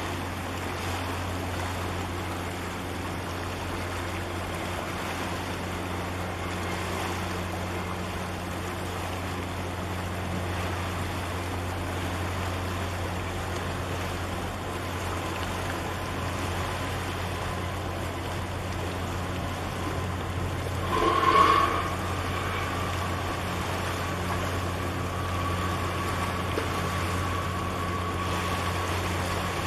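Steady low drone of a passing chemical/oil products tanker's machinery, over a hiss of water and wind. About two-thirds of the way through comes a brief, louder sound, followed by a faint steady high tone that stops near the end.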